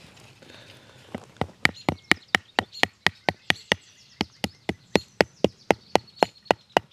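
Tent peg being hammered into stony ground to anchor a tarp guy line: rapid, even strikes, about four a second, starting about a second in.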